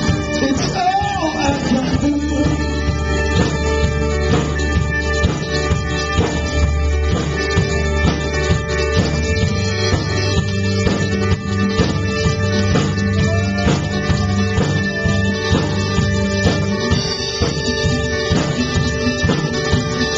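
Rock band playing live: electric guitar ringing with held, repeated notes over bass guitar and drum kit, in a mostly instrumental passage. A short vocal line slides down in pitch in the first couple of seconds.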